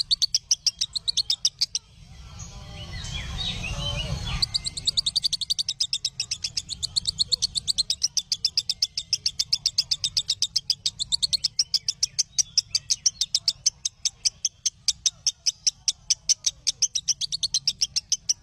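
Bird calls from a tutoring recording: sharp high chirps repeated evenly, about four a second. From about two seconds in, a louder swelling sound with gliding notes and a low rumble covers them, cutting off abruptly near the five-second mark before the chirping goes on.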